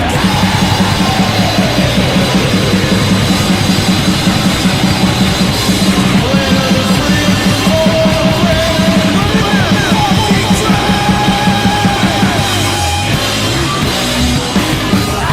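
Rock band playing loud, fast punk rock led by a drum kit with a driving, even beat, and sliding pitched notes over it in the middle.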